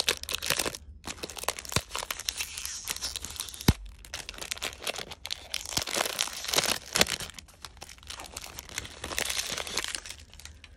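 Clear plastic shrink-wrap being torn and pulled off a cardboard box by hand, crinkling and crackling throughout, with one sharp click a few seconds in.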